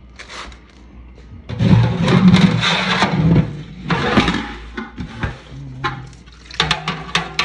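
Rushing, splashing noise like water, in bursts, with a low hum beneath. Near the end come sharp clicks and scrapes as a mesh strainer works in a bucket of water.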